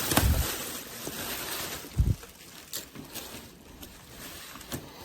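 Packaging being handled and rummaged through: a rustling noise, loudest in the first two seconds, with a low thump at the start and another about two seconds in, then a few light clicks and knocks.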